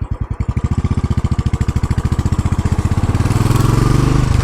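Royal Enfield Classic 500's single-cylinder engine thumping under way, its beat quickening steadily as it accelerates, with a brief dip near the end.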